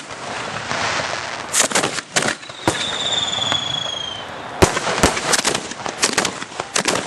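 Fireworks going off close by: a string of sharp bangs and cracks as shells are fired, with hissing and crackle between them. About three seconds in, a high whistle glides slightly down for about a second and a half.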